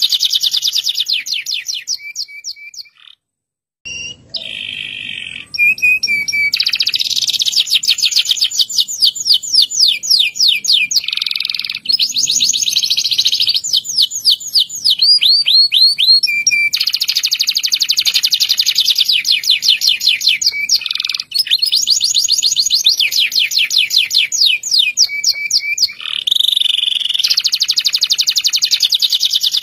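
Domestic canary singing in long rolling trills: very fast runs of repeated high notes, broken by a short silence about three seconds in and by brief changes of phrase.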